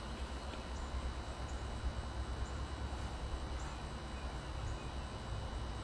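Outdoor background: a low, unsteady rumble with a few faint, short high-pitched chirps or ticks now and then.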